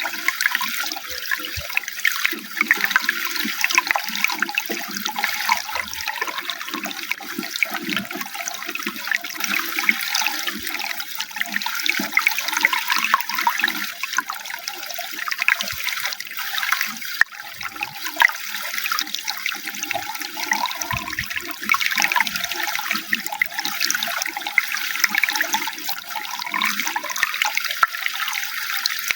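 Running water flowing and splashing continuously, a steady rush with irregular gurgles underneath.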